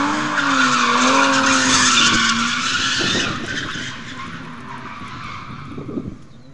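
Drifting car's engine revving, its pitch rising and falling, under a loud tyre screech as the car slides. The sound is loudest for the first three seconds, then fades away.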